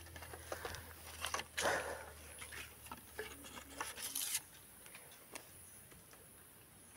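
Irregular close-up rustling, crackling and small clicks from hands handling the baited fishing line and rod and brushing through leafy branches. The noises come thick for about four and a half seconds, then die down to a faint background.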